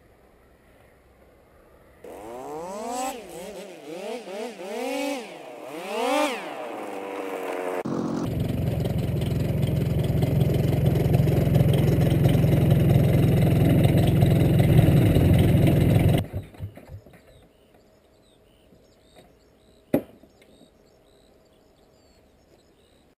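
Powered-paraglider trike engine revved up and down about five times, then held at high power for about eight seconds, its propeller close by with heavy buffeting noise, then cut off suddenly with a few sputters. A single sharp click follows a few seconds later.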